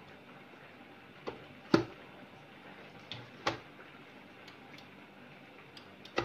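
Kitchenware knocking against a steel pot while cooked tomatoes are scooped into a mixer grinder's plastic jar: five short, sharp knocks, roughly in pairs, the loudest about two seconds in.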